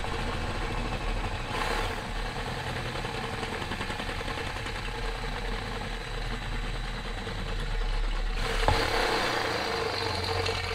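DeWalt 18V cordless drill running a step drill bit down through a hole in a chrome light bar to enlarge it. A steady motor whine with the bit cutting, growing louder for the last couple of seconds, with one sharp click nearly nine seconds in.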